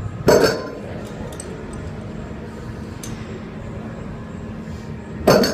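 Two loud metallic clanks of a loaded Rolling Thunder revolving grip handle and its iron plates, about five seconds apart, each ringing briefly, as the 200 lb weight is lifted and set down between reps.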